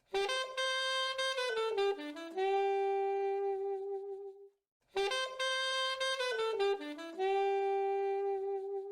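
Honor 8A phone ringtone: a short melodic phrase that steps down through a few notes and settles on a long held note, played twice with a brief pause between.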